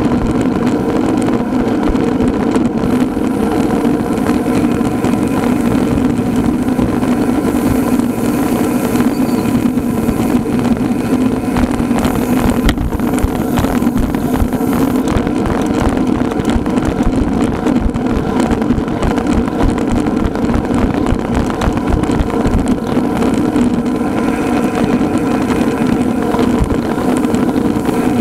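Steady wind buffeting and road noise while riding in a road-bike peloton, with a constant low hum that holds the same pitch throughout.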